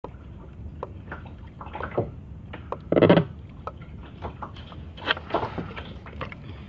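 Water lapping and sloshing against a kayak, with small knocks and handling sounds and one louder burst about three seconds in.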